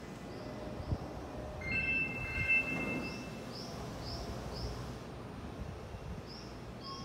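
Station platform ambience beside a standing electric train: a steady low hum, with short high bird-like chirps repeating in groups of about four. A steady electronic tone on two pitches sounds from about two to three seconds in.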